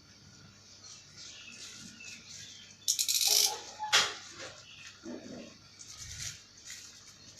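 Packaging being handled during an unboxing: irregular rustling, with a brief loud crinkle about three seconds in and a sharp click about a second later.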